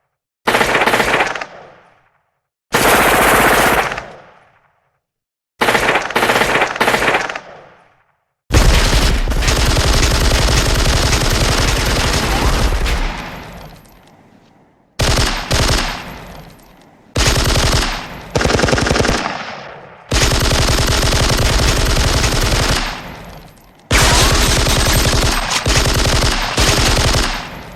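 Film sound effects of automatic gunfire: a series of separate machine-gun bursts, short ones of a second or two at first, then longer bursts of three to five seconds, each stopping abruptly with an echo tail trailing off.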